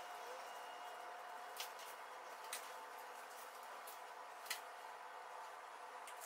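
Three light, sharp clicks over a faint steady hum.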